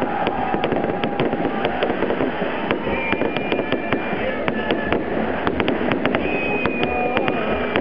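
Fireworks display: a rapid, irregular string of crackling pops and bangs from aerial shells bursting, over a continuous dense rumble. Two held whistles sound, one about three seconds in and another about six seconds in.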